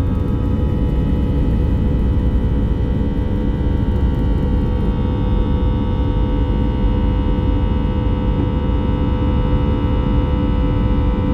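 Airbus A320's jet engines running at takeoff thrust, heard inside the cabin as a loud, steady roar with several held engine tones over a deep rumble. The rattle of the wheels on the runway stops about five seconds in as the plane lifts off and climbs.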